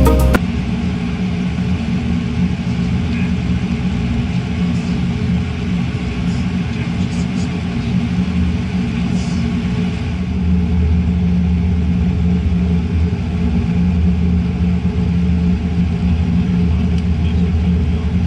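Steady drone of a Boeing 787-9 airliner heard inside the cabin: engine hum and airflow noise, growing slightly louder about ten seconds in.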